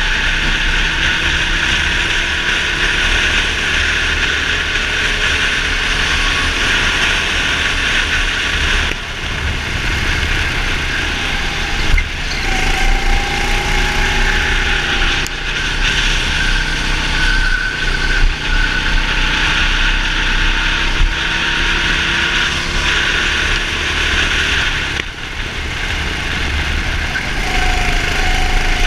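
Racing kart engine running hard at speed, heard from on board the kart. It eases off briefly about nine seconds in and again near the end, and its pitch rises as it picks up speed again.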